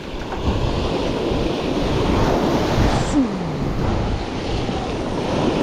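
Ocean surf washing against rocks, with wind buffeting the microphone. A brief low tone falls in pitch about three seconds in.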